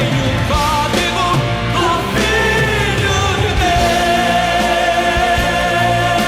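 Background music: a song with a singing voice over a band, the voice holding one long note in the second half.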